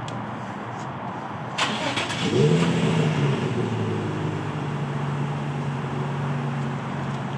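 Stock Nissan 350Z's 3.5-litre V6 cold-starting: it fires about a second and a half in, flares up in revs briefly, then settles into a steady, quiet idle.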